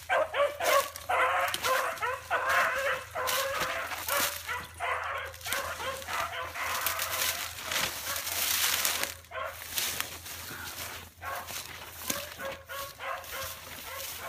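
Young dogs, 7-month-old pups, barking and yelping over and over as they run a chase. The calls come thick for the first several seconds and thin out after about nine seconds.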